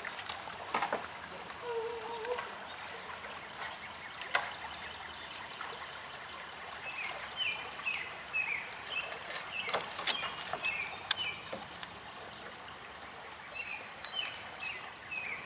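Shallow, low-running stream flowing, with a few sharp knocks. A bird calls in short repeated notes through the second half.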